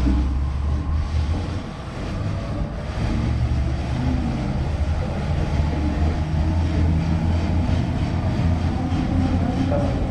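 Double-deck Sydney Trains electric train moving along the platform: a steady low hum and rumble from the train.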